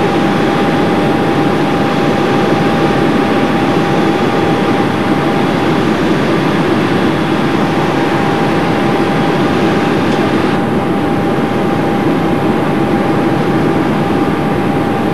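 Boeing 747-217B flight deck on final approach with the landing gear down: a loud, steady rush of airflow and engine noise, with a thin steady whine above it.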